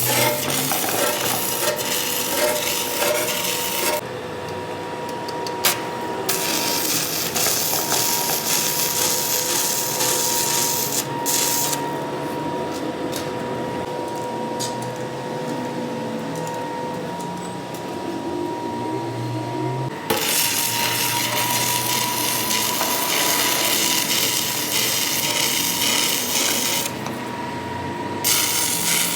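Metal lathe running with a steady whine while the cutting tool scrapes the steel truck axle. The high-pitched cutting noise comes and goes in spells of several seconds.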